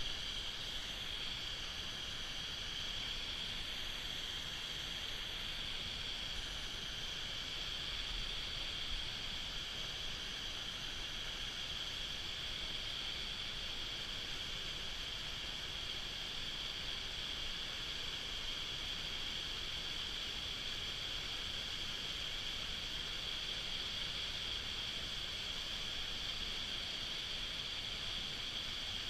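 Rushing water of a mountain stream and waterfall, heard as a steady, unbroken hiss.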